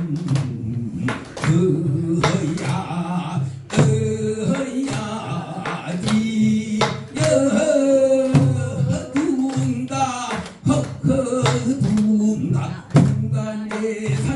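A man singing a Korean folk song (minyo) into a microphone, with held, wavering notes, accompanied by strokes on a buk barrel drum and the audience clapping along.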